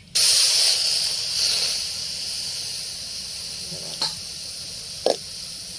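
Water poured into a hot aluminium pan on a wood fire, sizzling and hissing loudly at once, the hiss slowly fading over the next few seconds. Two short light knocks come near the end.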